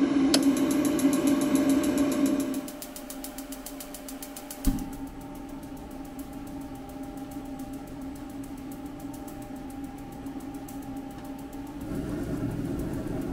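RIDGID 18-volt hybrid propane forced-air heater starting up: its fan runs with a steady hum and a rapid, even ticking, with one sharp click about four and a half seconds in. About twelve seconds in the sound grows louder with a low rumble as the burner lights.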